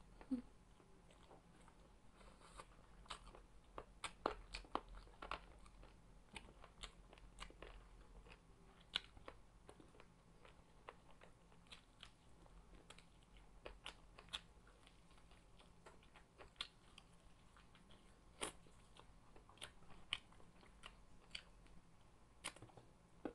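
Faint close-up crunching and chewing of Jollibee Chickenjoy fried chicken eaten by hand: irregular crisp crunches and clicks of bites, a few louder ones about four to five seconds in and again past the middle.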